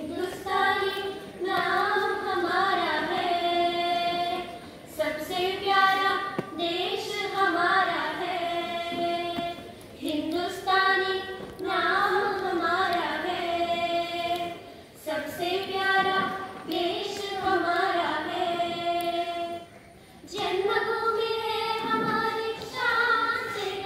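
A group of schoolgirls singing together into a microphone, in phrases of about five seconds with short breaks between them, with no instruments.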